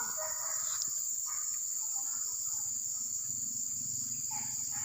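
Steady high-pitched insect chorus, an unbroken drone, with faint scattered sounds below it.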